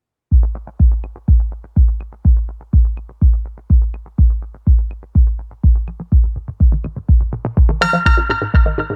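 Electronic dance music: a heavy kick drum on a steady beat of about two a second, with faint high ticks between the beats. Near the end a bright cymbal crash lands and sustained synth chords come in over the beat.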